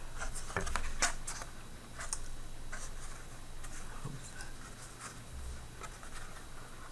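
Cards being handled and slid against one another: a scatter of light scrapes and clicks, busiest in the first second or so.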